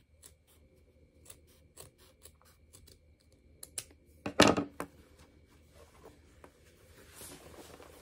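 Scissors snipping off the excess edges of sewn denim: a run of short, sharp snips, with one much louder sharp snap about four and a half seconds in. Faint fabric rustling near the end.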